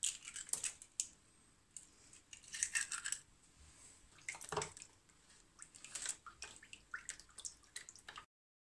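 An egg being cracked and separated by hand into a plastic bowl of liquid, then a silicone spatula stirring and scraping the wet mixture, giving a run of sharp clicks, taps and wet splashes. The sound cuts off suddenly near the end.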